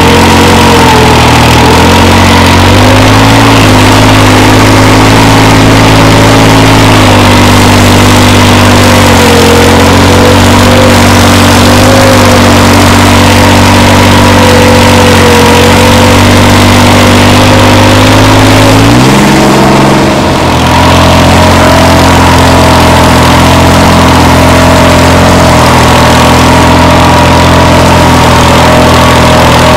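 New Holland 3630 tractor's diesel engine, modified with a turbo and reworked diesel pump, running loud and close. Its speed drifts slightly, then rises quickly about two-thirds of the way through and holds at the higher speed.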